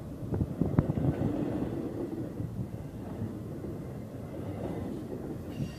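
Double-stack intermodal container train rolling past: a steady low rumble of steel wheels on rail, with a few sharp clacks in the first second.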